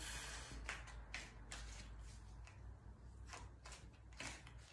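Tarot deck being shuffled by hand: faint, irregular card rustles and flicks as the cards slide against each other.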